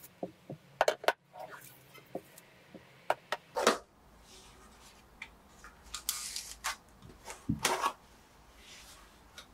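Plastic food containers and molded paper-pulp takeaway boxes being handled on a wooden table: a string of light clicks and knocks as boxes are set down, tapped and opened, with a sliding rustle about two-thirds of the way through.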